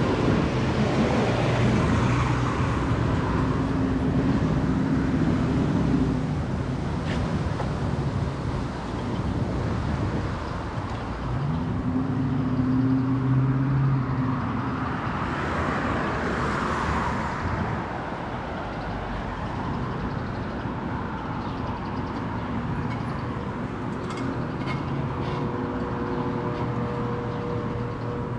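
City street traffic: cars and other vehicles passing, with engine hum swelling twice as vehicles go by and a broader whoosh of a passing vehicle about halfway through.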